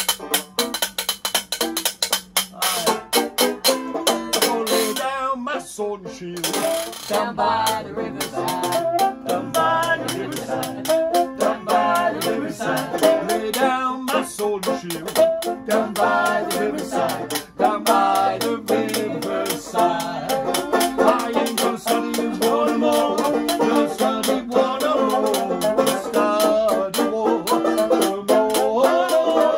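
Acoustic busking band playing a jazz tune. At first a washboard taps out a fast rhythm on its own; after a couple of seconds a strummed banjo and a muted trumpet come in with the melody over it.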